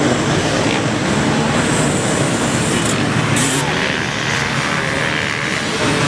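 Dirt bike engines running, a steady mechanical din.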